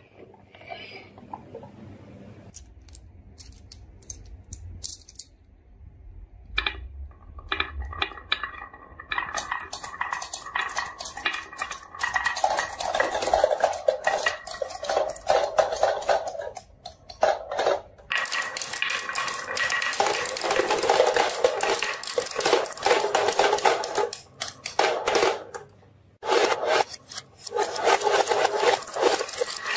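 Marbles rolling and clattering down a wooden zigzag marble run, clicking against its wooden baffles. Scattered single clicks at first, then a dense, continuous rattle from about a third of the way in, with a couple of brief pauses.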